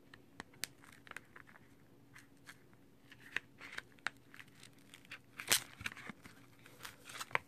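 Clear protective plastic film being peeled off a rugged phone case's screen protector: faint crinkling and crackling of the film, sparse at first and busier in the second half, with one louder crackle about five and a half seconds in.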